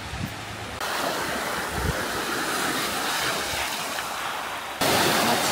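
Small sea waves breaking and washing up onto a sandy beach, a steady rushing wash that gets louder about a second in and again near the end.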